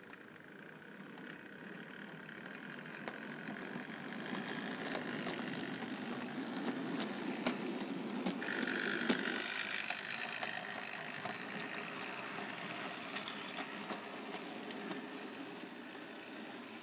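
OO gauge model train running on the track: a steady electric-motor and wheel rumble with scattered sharp clicks. It grows louder over the first several seconds, a higher whine comes in briefly near the middle, and then it slowly eases off.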